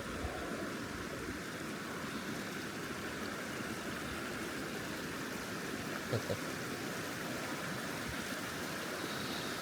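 Creek water running steadily, an even rushing, with a brief thump about six seconds in.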